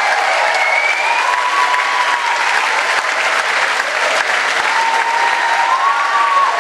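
Circus audience applauding steadily, with a held note sounding over the clapping twice.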